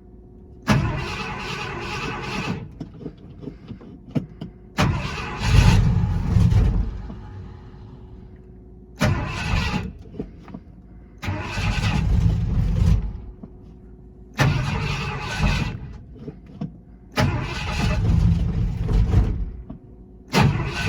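Push-button starter cranking a cold engine in about seven separate tries, each a second or two long with short pauses between, without the engine catching.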